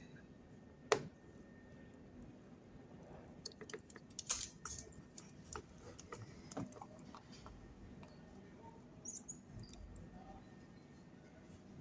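Faint scattered clicks, taps and scrapes of a soldering iron tip and fingers handling a printed circuit board while desoldering a capacitor. There is one sharper click about a second in and a cluster of small ticks a few seconds later, over a faint steady hum.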